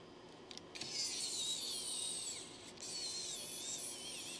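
Small electric precision screwdriver motor whining in two runs of about a second and a half each, its pitch wavering as it turns screws.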